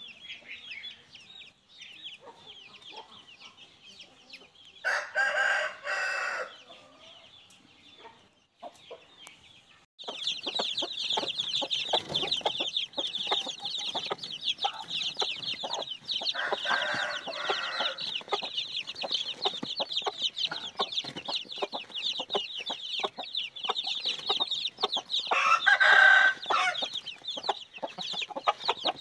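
Aseel chicks peeping constantly in a busy, high-pitched chorus, which gets much louder about a third of the way in. Three times an adult chicken crows over it, each call about a second and a half long.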